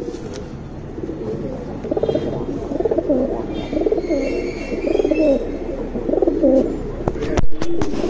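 Domestic pigeons cooing: a run of rolling, warbling coos that starts about two seconds in. A few sharp clicks come near the end.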